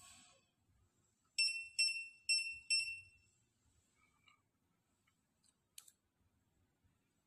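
Electronic buzzer of a bench power supply beeping four times in quick succession, short high-pitched beeps that each fade out fast, followed a few seconds later by a faint click.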